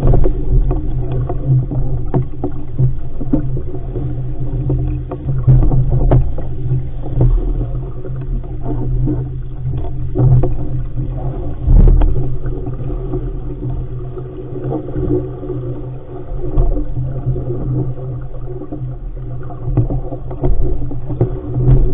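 Wind and water rushing past a sailing dinghy under way: a heavy, muffled low rumble that swells and eases, with a few sharp knocks of waves against the hull.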